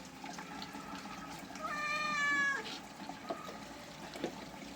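Domestic cat, wet and being shampooed in a bath, giving one long meow about two seconds in.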